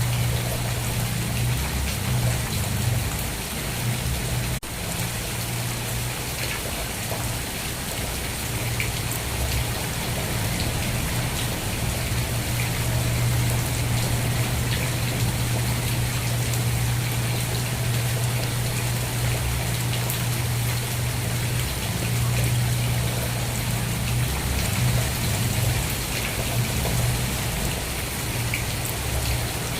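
Steady rain falling and pattering on surfaces, with a low hum underneath that drops out now and then.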